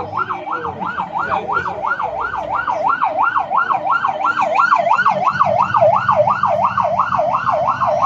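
Electronic siren on a fast yelp, its pitch swooping up and down about three and a half times a second without a break.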